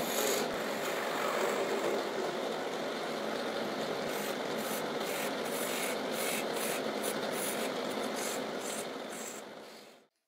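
Homemade wood lathe spinning a small wooden workpiece while a hand-held chisel scrapes and cuts into it: a steady rasping hiss, with quick scratchy strokes through the second half. The sound fades out near the end.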